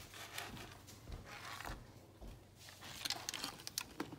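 Faint rustling and scraping of a paper plate being bent and tipped over a plastic cup to slide crumbs in, with a few light clicks and taps near the end.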